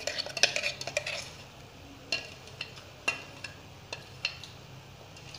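Steel spoon clinking and scraping against a stainless-steel mixer jar as batter is scraped out into a bowl: a quick run of clinks in the first second, then single taps about once a second.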